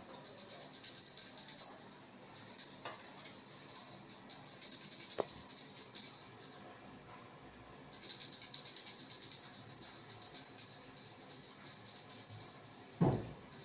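Brass puja hand bell rung rapidly and continuously for the camphor aarti, a bright steady ring in three long stretches with short pauses about 2 and 7 seconds in. A low thump near the end.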